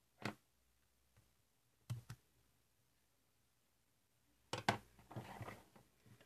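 Plastic LEGO Technic beams and pins being handled and snapped together: a single click, a quick double click about two seconds in, then another pair of clicks and a short clatter of parts near the end.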